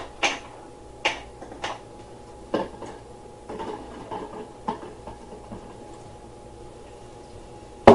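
Irregular knocks and clatter of equipment being handled, about eight sharp strikes with the loudest near the end, over a faint steady hum.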